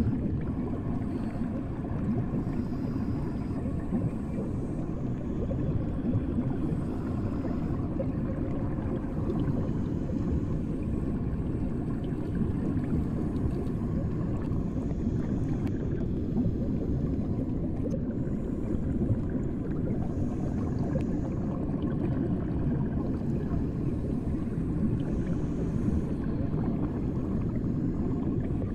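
Steady, muffled low rumble of water picked up by a submerged microphone: the dull sound of being under water.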